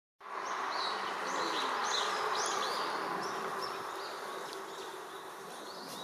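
An insect buzzing steadily close by, easing off over the last couple of seconds. Small birds sing short, repeated high chirps in the background.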